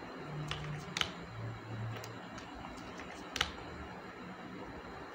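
Computer keyboard keys and mouse buttons clicking: a handful of separate sharp clicks, the loudest about three and a half seconds in.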